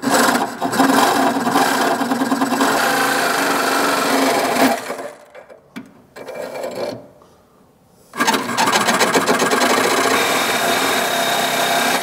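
Cordless Milwaukee power tool cutting a notch in fiberglass body panel with a rasping, grinding noise. It runs in two long passes of about four seconds each, with a short burst and a brief pause between them.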